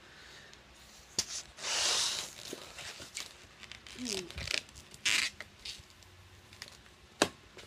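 Latex 260 twisting balloon being handled and inflated: two loud rushes of air about three seconds apart, a brief rubbery squeak, and scattered crinkling clicks.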